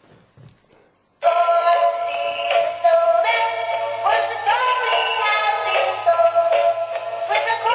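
Novelty Santa toy playing a Christmas song in a tinny synthesized singing voice, starting suddenly about a second in.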